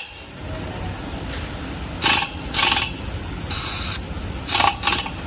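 Short scraping, rustling noises, five of them starting about two seconds in, as cables and a terminal nut are handled and tightened on an inverter power board. One of them is a slightly longer even hiss.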